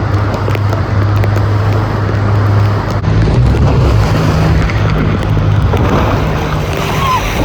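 Tour boat's engine running steadily under way, with rushing wind and water noise over it; the engine note shifts a little about three seconds in.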